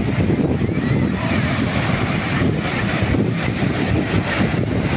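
Sea surf breaking and washing up a sandy beach, heavily overlaid by wind buffeting the microphone as a steady low rumble.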